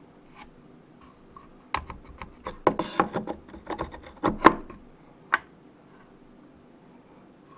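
Close-up handling of a bamboo fly rod section while thread is wrapped around a guide foot: a run of small clicks, taps and rubbing starts about two seconds in and lasts about three seconds, followed by one more click a second later.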